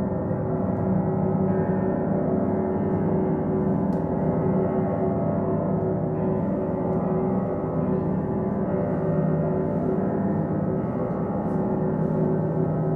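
Live experimental music: a dense, steady drone of many overlapping ringing tones with a fine shimmering flutter, holding without break or clear attacks.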